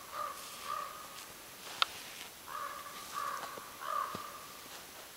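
A crow-like bird cawing in two series of three short calls, the second series louder and starting about two and a half seconds in. A single sharp click sounds near two seconds in.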